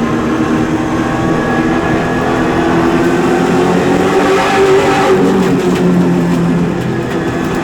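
Super late model race car's V8 engine running hard under racing, heard from inside the car. The engine note climbs a little about halfway through, then eases back near the end.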